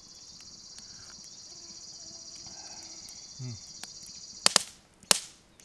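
An insect trills steadily in a high, fast-pulsing buzz that cuts off about four and a half seconds in, followed by two sharp, loud cracks about half a second apart.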